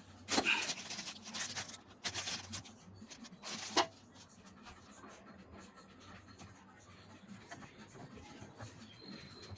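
Three short scraping noises in the first four seconds, the last one the sharpest, then a low, steady background.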